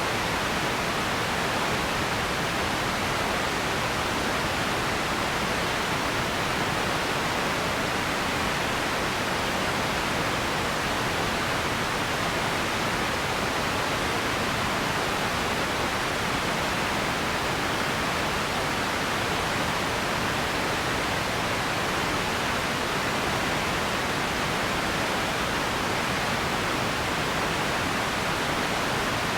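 Radio static: a steady, even hiss of noise with no tones, voices or crackles, unchanging in level.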